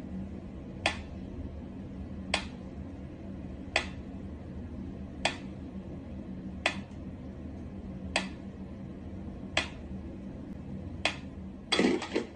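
Sharp clicks repeating evenly about every one and a half seconds over a steady low hum, with a short flurry of clicks near the end.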